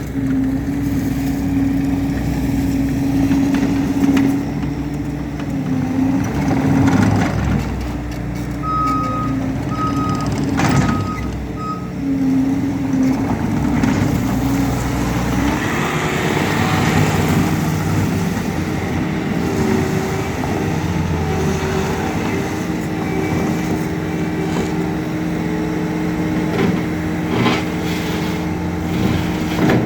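Bobcat T76 compact track loader's diesel engine running, its note shifting with throttle and load as the machine works. About a third of the way in, its backup alarm gives four short beeps. There are a few metallic clanks along the way.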